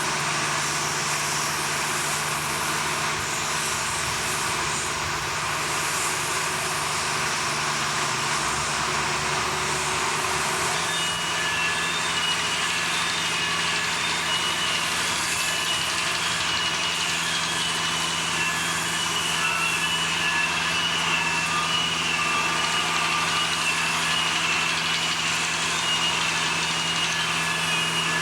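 Steady, loud din of heavy machinery running on a blast furnace rebuild site. About a third of the way in, short, high-pitched beeps start repeating on and off over the noise.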